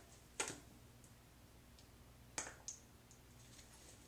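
Three short clicks from a bottle of Oyin Hair Dew moisturizer as a little product is dispensed into the hand, the last two close together.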